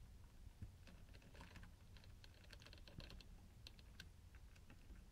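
Near silence: faint room hum with a scattered series of small, light clicks, like a fingertip tapping or handling a plastic part.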